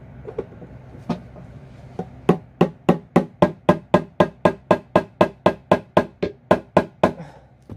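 Hammer repeatedly striking the handle of a screwdriver driven into a hard plastic security box. There are three spaced blows, then a steady run of about twenty blows at some four a second, which stops near the end.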